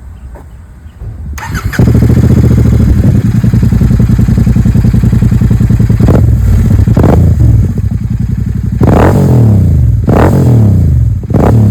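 Royal Enfield Continental GT 650 parallel-twin engine with a Gursewak Big Shot aftermarket exhaust, starting up about a second and a half in, then idling and revved in several throttle blips. Two quick blips come near the middle and three longer revs toward the end.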